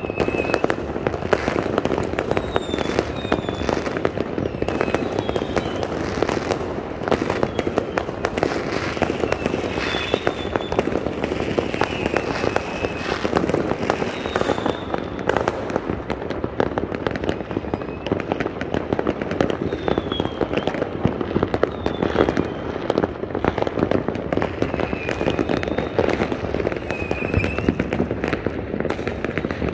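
A dense, continuous fireworks barrage: rapid bangs and crackling without a break, with short high whistles every few seconds.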